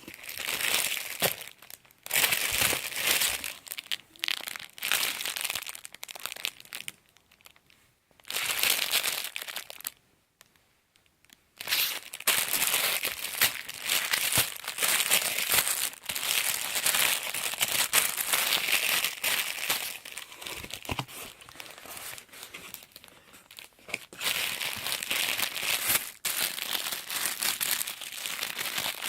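Packaging being unwrapped by hand, crinkling and rustling in bursts, with two short pauses, then running on almost without a break.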